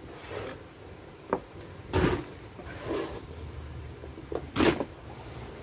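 Soil being scooped and tipped into fabric planter bags: a few short scraping, rustling pours. The loudest comes about two seconds in, another near the end, with a small click just before the first.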